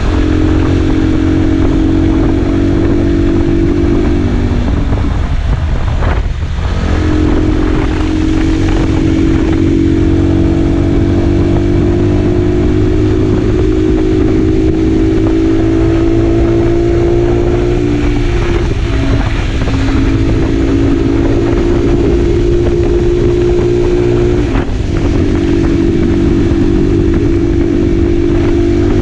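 Motorcycle engine running under way at road speed, with a steady low rumble of wind and road noise on the mounted camera. The engine note dips and changes briefly three times, as the throttle is eased or a gear is changed.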